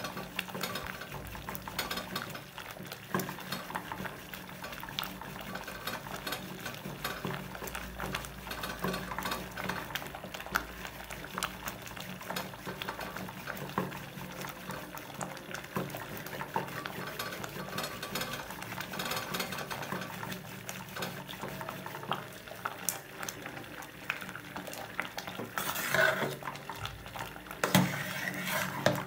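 A wooden stick stirring thick stinging-nettle (sisnu) purée in an aluminium pot, scraping and knocking against the pot sides, with a few louder knocks near the end.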